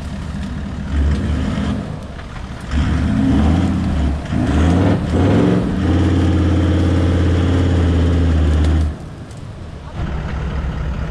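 Toyota Land Cruiser 78 troop carrier's engine revving under load as it climbs over muddy landslide debris: a few short surges, then held high and steady for about three seconds before easing off near the end.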